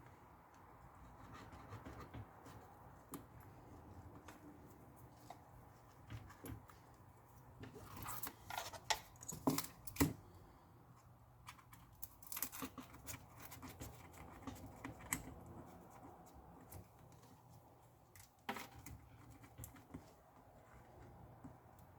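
Scraping, scratching and small clicks of hand tools and fingers working over an iPad's frame, cleaning it after the cracked screen glass was removed. Louder scraping comes in two spells, about 8 and 12 seconds in, and there is a sharp tap near the end.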